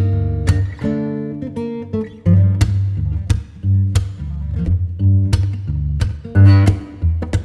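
Background music led by a strummed guitar, its chords struck in sharp strokes over a deep bass.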